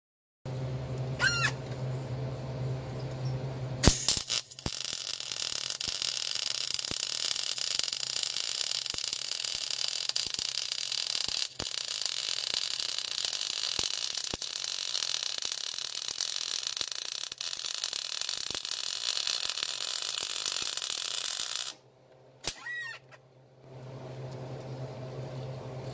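Wire-feed (MIG) welder laying a continuous bead on a steel car frame rail: the arc crackles and sizzles steadily for about seventeen seconds, starting about four seconds in and cutting off sharply near the end. A low hum runs before and after the weld.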